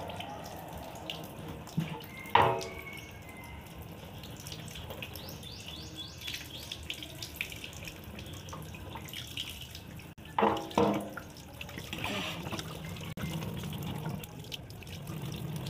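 Tap water running steadily into a basin, splashing as raw pork is washed by hand. A short voice-like sound comes about two seconds in, and two more just after ten seconds.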